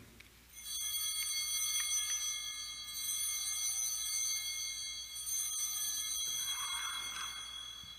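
Altar bells rung at the elevation of the consecrated host: a sustained high ringing of many clear tones that starts about half a second in and fades near the end. The ringing marks the moment the host is shown to the people.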